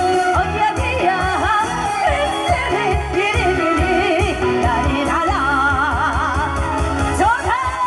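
A woman singing a Korean trot song into a microphone over amplified backing music with a steady beat, her held notes wavering with vibrato.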